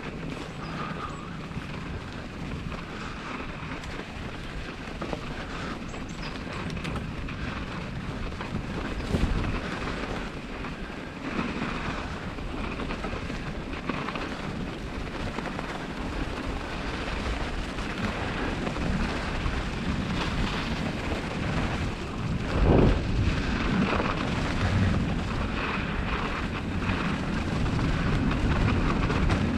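Bicycle ridden over a snow-covered track: a steady rushing rumble of tyres in snow and air over the microphone, growing slightly louder, with a couple of louder knocks from bumps partway through.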